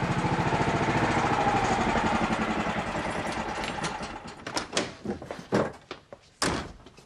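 Motorcycle engine running steadily with an even, rapid beat, dying away about four seconds in. Several sharp clicks and knocks follow.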